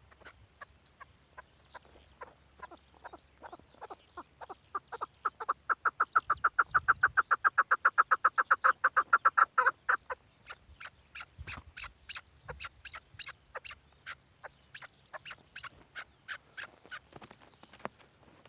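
Chukar partridge calling: a long series of short clucking notes that speed up into a rapid, loud run of about seven or eight a second in the middle, then go on slower and softer toward the end.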